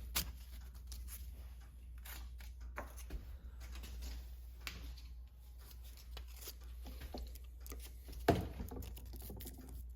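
Faint, irregular scraping and paper rustling of sandpaper being worked by hand on a steel knife blade, with a louder knock about eight seconds in.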